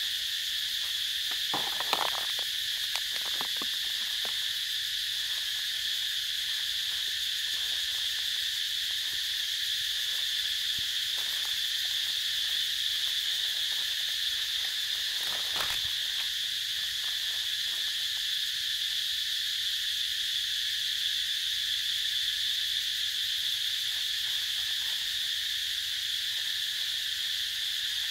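Steady insect chorus, a continuous high-pitched buzzing trill. A few brief clicks come through near two seconds and again about halfway.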